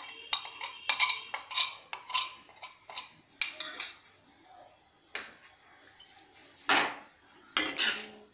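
Metal spoon clinking a run of sharp taps against a plate and the pan as cardamom powder is tipped in, then a slotted steel ladle scraping and stirring through rice and water in an aluminium kadhai, a few strokes near the end.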